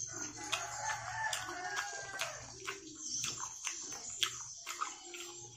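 Close-up eating sounds: chewing and mouth clicks as rice is scooped by hand from an aluminium plate. A wavering, drawn-out animal call sounds in the background through the first couple of seconds.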